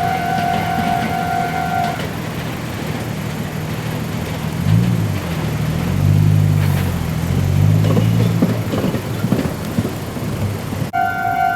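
Level crossing warning alarm sounding a steady two-tone ring, which stops about two seconds in. A road vehicle's engine hum then rises and falls in pitch, with a few knocks. The alarm starts ringing again abruptly near the end.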